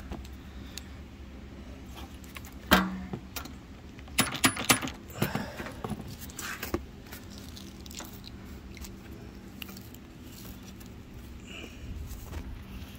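Scattered sharp clicks and light metallic clatter, the loudest about three seconds in and a cluster of them a second or so later, from tools and hardware being handled; no tool runs for any length of time.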